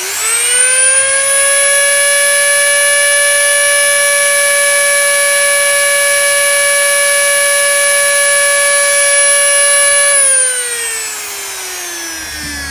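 High-speed rotary tool with a fine bit in a plywood router base, spinning up with a rising whine and then running at a steady high pitch. About ten seconds in it is switched off and winds down with a falling whine.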